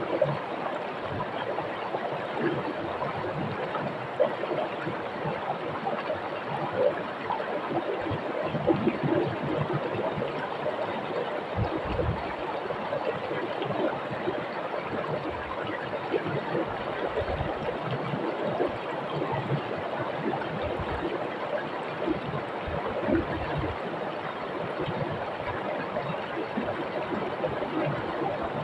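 Water of a shallow rocky river rushing and splashing over stones, a steady continuous flow with small bubbling splashes throughout.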